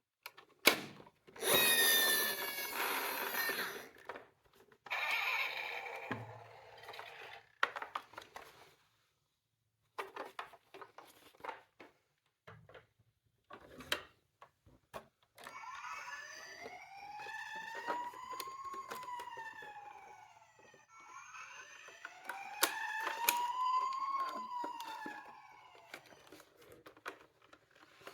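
Electronic sirens of toy miniature ambulances and police cars. A loud burst of siren sound comes about two seconds in and a shorter one a few seconds later, then two slow wails, each rising and falling over about five seconds. Light clicks and knocks run between them.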